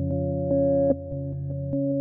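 Background music: soft synthesizer and electric-piano chords with a gentle, even pulse.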